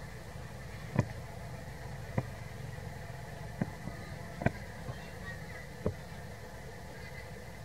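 Steady low engine-like hum, with five or six sharp clicks or knocks spread about a second apart.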